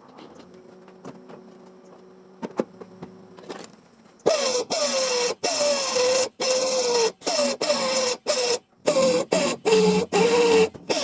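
MIG welder laying plug or tack welds on car body sheet metal: a faint hum and a few clicks, then from about four seconds in a run of short buzzing, crackling arc bursts, each under a second, with brief pauses between.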